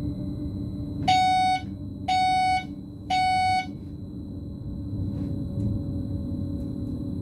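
Driver's-cab warning tone in a BLS RABe 515 sounding three short beeps about a second apart, warning the driver that the next signal shows stop. Under it runs the steady rumble of the electric train moving.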